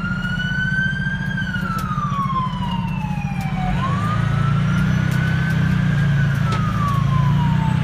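Fire engine siren wailing, heard from inside the cab of a 2011 Pierce fire engine over the low drone of its diesel engine. The pitch climbs quickly and then sinks slowly, about once every five seconds.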